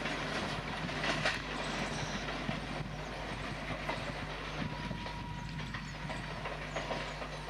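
Passenger train running away down the track: the steady sound of its coach wheels on the rails.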